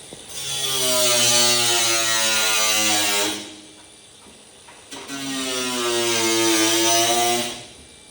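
Handheld electric power tool cutting in two runs of about three seconds each. Its motor pitch sags and recovers under load, with a strong hiss from the cut.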